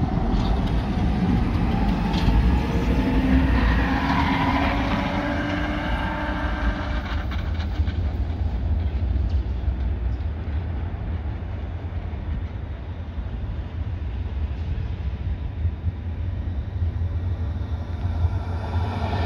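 A Hägglunds M29 and ASEA M28 tram pair passes and moves off, its traction motors whining and rising gently in pitch over the rumble of steel wheels on the rails, then fading. Near the end a second tram, an AnsaldoBreda Sirio, begins to be heard approaching.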